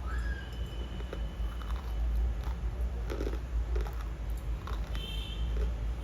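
Crunching of something crisp being bitten and chewed: scattered short crackles over a low rumble.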